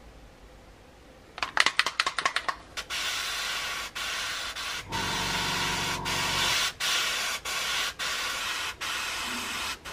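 Gravity-feed airbrush spraying paint: first a quick run of about ten short puffs, then longer hissing bursts broken by brief pauses as the trigger is worked. A lower hum joins in for about a second and a half in the middle.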